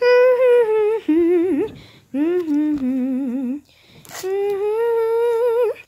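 A high-pitched voice humming a wordless tune in three long, wavering phrases with short breaks between them.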